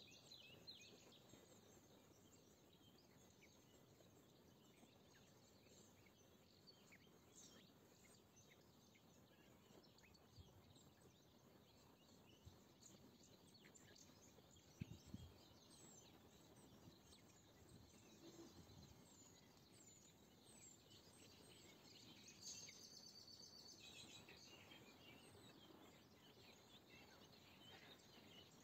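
Faint birdsong: scattered chirps and short calls of small birds over a soft background hiss, with a burst of rapid repeated high notes about three-quarters through. A brief soft low thump about halfway through.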